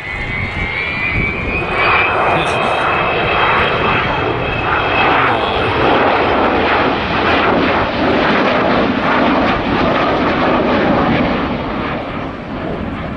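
Avro Vulcan's four Rolls-Royce Bristol Olympus turbojets on a display pass: a thin whine rising in pitch over the first couple of seconds, then loud jet noise swelling up and holding before easing near the end.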